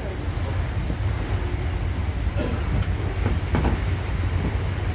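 Steady low engine drone of a passenger boat under way, with wind buffeting the microphone. Faint voices come through about halfway through.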